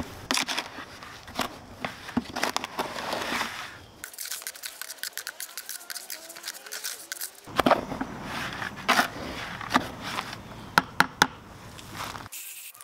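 Dry Portland cement and sand being stirred with a small hand tool in a plastic bucket: gritty scraping with sharp ticks as the tool knocks the bucket. It comes in two spells with a quieter stretch between.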